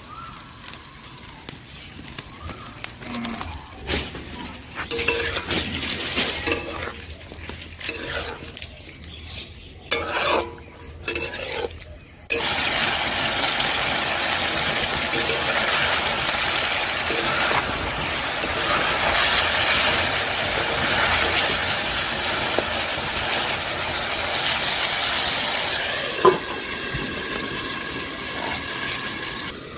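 A spoon stirs and scrapes mutton and spices in an iron kadai. Less than halfway through, a loud, steady sizzle of the meat and masala frying starts suddenly. A single knock near the end is the lid going on the pan, and the sizzle turns quieter under it.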